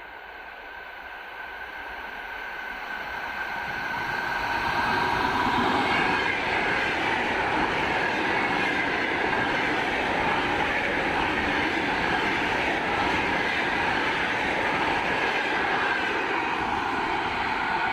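A train running on the rails, growing louder over the first few seconds and then holding a steady rumble with a faint high whine.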